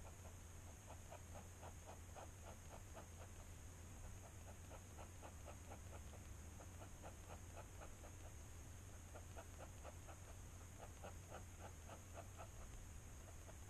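Fountain pen nib scratching faintly on sketchbook paper in quick runs of short hatching strokes, about five a second, with brief pauses between runs.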